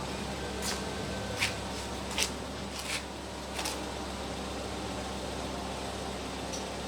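Five sharp clicks and taps, spaced well under a second apart, over a steady fan-like hum; one faint click near the end.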